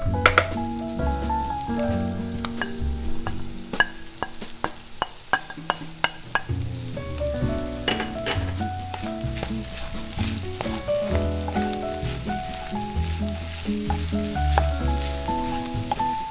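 Tuna and chopped vegetables sizzling in a frying pan as a wooden spatula stirs them, with sharp taps of the spatula on the pan, the busiest about four to six seconds in. Background music with a steady bass line plays throughout.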